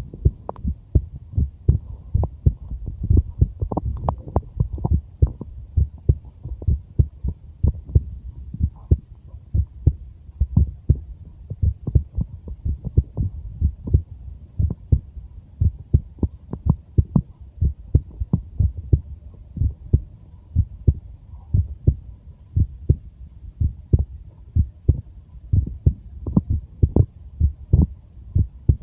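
A 23-year-old person's heartbeat: a steady, regular rhythm of low thuds over a continuous low background rumble.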